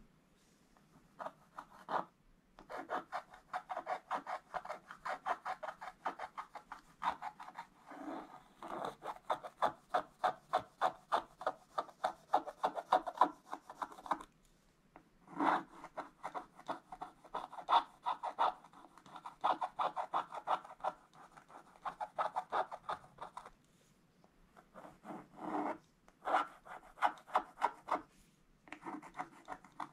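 Wooden scratch stylus scraping the black coating off a scratch-art page in quick strokes, several a second, in runs broken by brief pauses.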